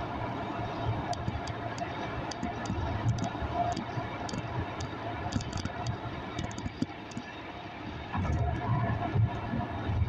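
Ride noise heard from inside a moving road vehicle: steady engine and tyre rumble with light rattling ticks, growing louder about eight seconds in.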